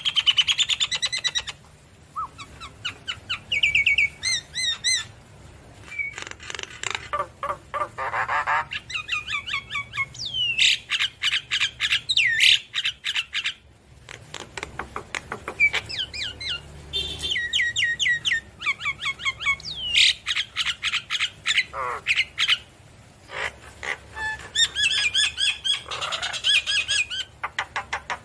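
Javan myna singing a long, varied song of whistles, fast chattering runs and harsh squawks, broken by a few short pauses.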